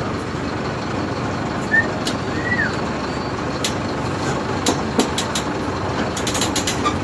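Mercedes-Benz 1722M bus's diesel engine running steadily, with a few sharp clicks scattered through it.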